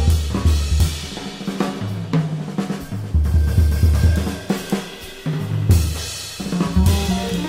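Background music: a drum kit with snare, bass drum and cymbals over a moving bass line and other pitched instruments.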